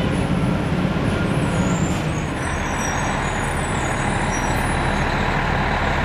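Fire engine's diesel engine running at low speed close by, a steady rumble with no siren; a little over two seconds in the sound shifts, the deep rumble easing and a hissing noise growing.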